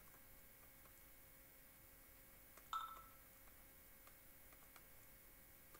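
Near silence: room tone with a few faint ticks. About two and a half seconds in, a single short tone sounds and dies away within a third of a second.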